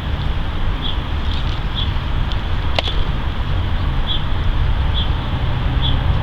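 Steady low rumble of outdoor background noise, like traffic, with a small bird chirping about once a second and one sharp click near the middle.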